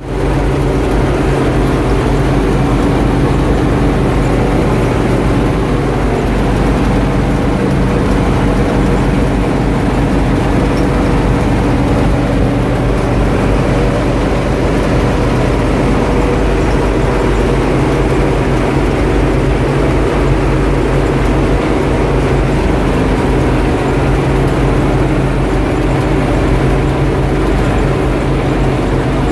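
Oliver 7600 combine running steadily while harvesting wheat: a constant loud engine drone with the machine's noise over it, unchanging throughout.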